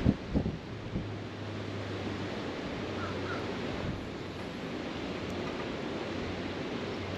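Wind buffeting the microphone over lapping water, with a few knocks of handling noise at the start and a low steady hum through most of it.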